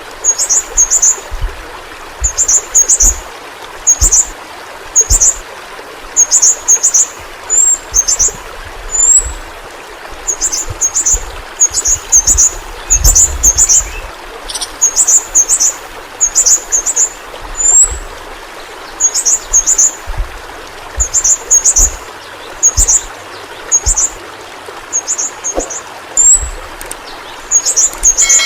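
Yellow-rumped flowerpecker (pentis pelangi) calling: short bursts of very high, thin chittering notes repeated every half second to a second, some as quick upward flicks, over a steady background hiss.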